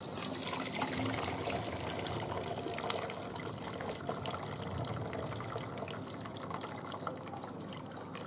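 Chicken pan juices pouring from a metal baking sheet through the strainer of a gravy separator into its cup: a steady splashing stream that is strongest about a second in and gradually eases off.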